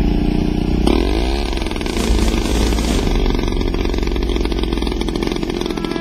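An engine-like motor running steadily, its pitch sweeping up and down about a second in.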